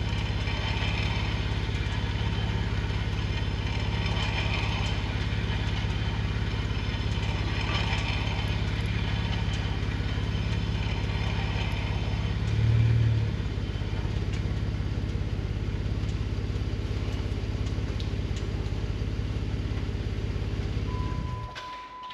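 Jeep Wrangler engine idling steadily, with one brief louder swell about two-thirds through, then shut off near the end.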